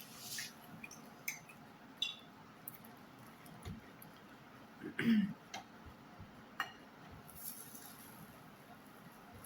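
Faint eating sounds while pizza is being eaten: scattered small clicks and mouth smacks, with a brief low vocal sound about five seconds in.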